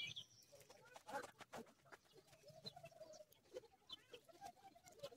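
Near silence with faint bird calls in the background and a few soft ticks.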